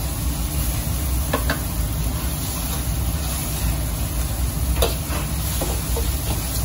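Metal ladle scraping and knocking against a steel wok while noodles and vegetables are stir-fried over a gas burner, with a light sizzle above a steady low rumble. Sharper ladle strikes stand out a few times, about a second and a half, five and six seconds in.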